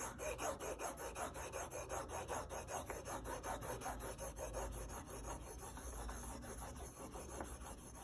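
Steel plane blade, clamped in its honing jig, rubbed rapidly back and forth on an extra-fine DMT diamond plate, several strokes a second, honing a 32-degree secondary bevel.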